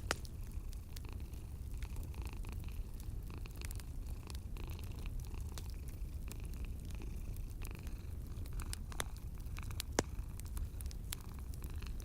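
Cat purring steadily over a fireplace fire's crackle, with scattered sharp pops; the sharpest pop comes about ten seconds in.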